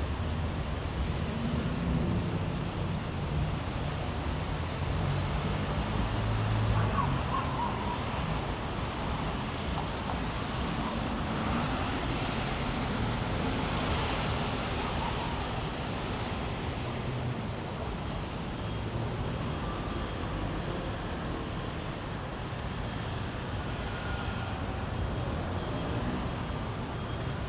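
City street traffic: cars and other vehicles passing in a steady wash of road noise with low engine rumble, a little louder about seven seconds in.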